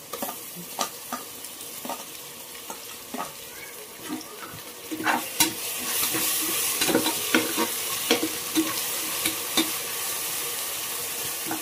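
Onions and ginger-garlic paste sizzling in hot oil and ghee in an aluminium pressure cooker, with a slotted metal spatula scraping and knocking against the pot as it stirs. The sizzle grows louder about five seconds in.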